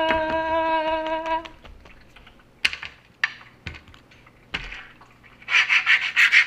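A child holds one long, level sung note that stops about a second and a half in. A few sharp knocks follow as small toys and Lego minifigure pieces strike a wooden table. Near the end comes a fast, scratchy rustling.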